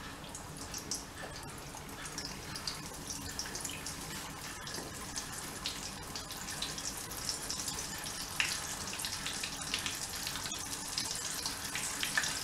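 Battered pieces of buffalo fish deep-frying in a saucepan of hot oil: a steady sizzle full of small crackles and pops, growing a little louder toward the end.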